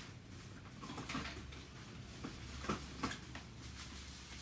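A few light clicks and knocks with a short rustle, as small items are handled and set down on a workbench; the two sharpest knocks come close together about three seconds in.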